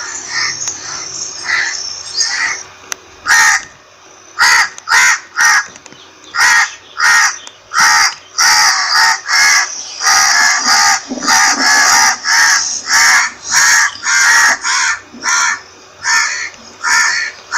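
Crows cawing: a long run of short caws, softer for the first three seconds, then loud and coming quickly, more than one a second.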